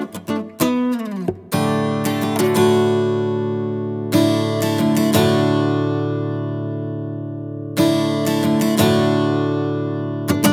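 Background music on acoustic guitar: a quick run of plucked notes, then full strummed chords left to ring out, struck again every few seconds.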